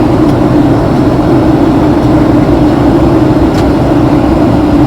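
Steady roar of a Boeing 757-200's twin jet engines and the rushing air, heard inside the passenger cabin, with a strong constant hum under it. The aircraft is descending toward landing.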